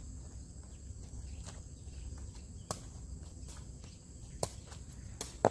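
A sepak takraw ball being kicked back and forth: about five sharp knocks, irregularly spaced, the loudest just before the end, over a faint steady high-pitched tone.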